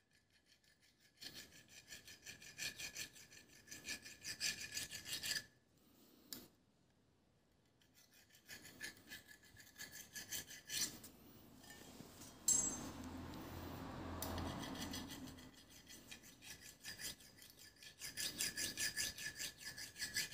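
Small hand file scraping back and forth on the crown race seat of a chromed bicycle fork, in spells of quick strokes with pauses between them. The seat is being filed down so the headset's lower race will fit on.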